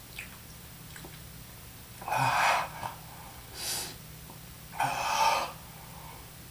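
A man breathing hard through his mouth: two loud, forceful breaths out about two and five seconds in, with a softer, hissing breath in between.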